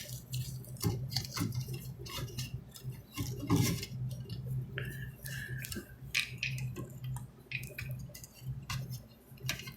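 Irregular small clicks, taps and clinks of electrical wires and a metal Romex clamp being handled and pushed through an electrical box, over a steady low hum.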